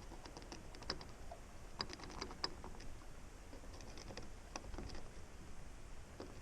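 Scattered faint, light clicks and taps at irregular intervals: small hardware being handled by hand.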